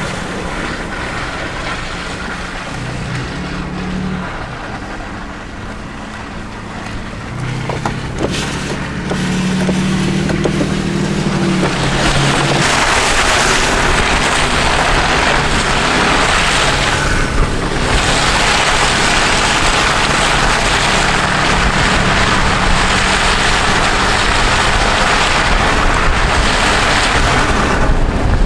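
Ford F-150 Raptor pickup truck's engine running while driving, its pitch rising and falling with the throttle. About twelve seconds in, a loud steady rushing noise joins it and keeps going.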